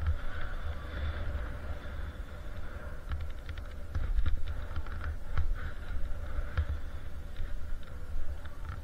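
Skis running through powder snow with a steady hiss, under a low rumble of wind buffeting the body-worn camera's microphone. Quick irregular clicks and knocks come mostly in the middle stretch.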